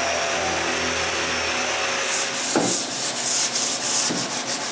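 Electric sander running steadily on the dried first coat of finish on the wooden rack. About two seconds in it gives way to quick back-and-forth rubbing strokes of hand sanding on the wood.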